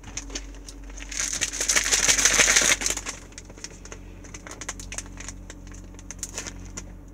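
A single-serve shake-mix packet torn open with a crinkly rip lasting about a second and a half, followed by scattered light crinkles and clicks as the packet is handled.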